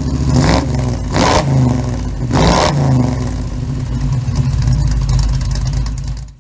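V8 engine running, with the throttle blipped in three quick revs in the first few seconds and then held at a steady run; the sound cuts off abruptly near the end.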